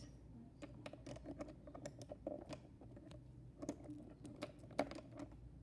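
Faint, irregular light clicks and taps of small hard objects being handled on a desk.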